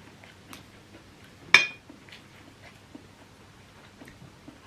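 Cutlery clinking against a dish: one sharp clink with a short high ring about a second and a half in, among faint small clicks of eating.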